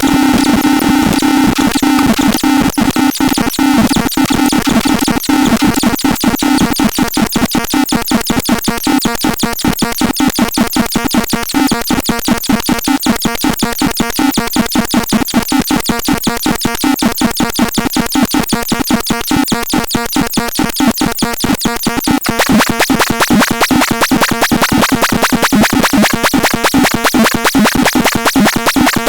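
Electronic synthesizer playing a demo sound: held tones give way to a fast, even stream of repeating pulses, which turns brighter and denser about three quarters of the way through.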